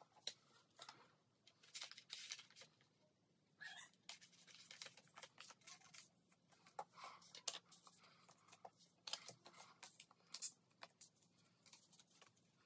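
Faint, intermittent rustling and crinkling of clear plastic binder sleeves as photocards are slid into the pockets, with small scattered clicks.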